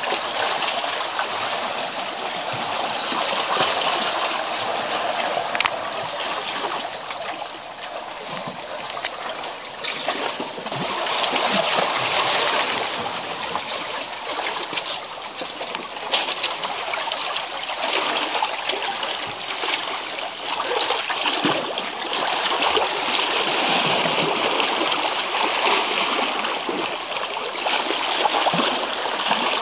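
Black Sea water washing and trickling over rocks in the shallows, with scattered sharp splashes.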